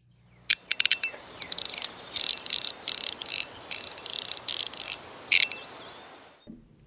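Metilis Hertz stainless steel and copper haptic fidget coin being worked: a few sharp single clicks, then repeated bursts of rapid, bright ratcheting clicks, each about half a second long.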